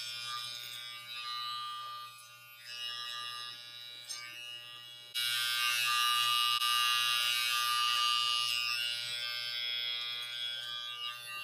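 Corded electric hair clippers buzzing steadily as they cut through thick curly hair. The buzz dips briefly about two seconds in and turns suddenly louder about five seconds in.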